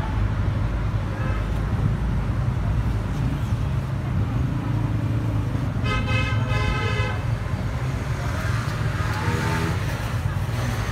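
Steady road-traffic rumble of passing vehicles, with a vehicle horn sounding once for about a second, around six seconds in.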